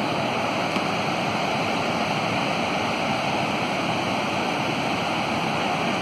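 Kuntala waterfall, white water tumbling down broad rock slabs into a pool, making a steady, unbroken rush.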